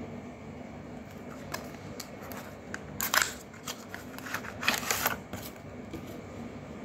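A paperboard carton being handled and a plastic pump bottle of baby lotion slid out of it: scattered clicks and short scraping rustles, loudest about three seconds in and again near five seconds.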